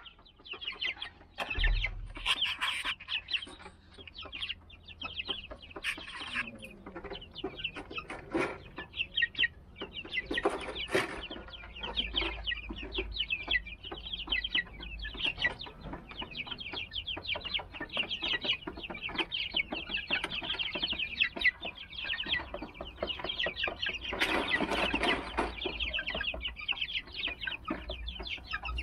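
A flock of 38-day-old Silver Laced Wyandotte chicks calling constantly, many short high cheeps overlapping, with a louder, noisier stretch about 24 seconds in and a low rumble underneath.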